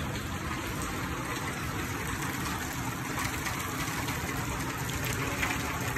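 Steady hiss of rain falling around the covered driving range.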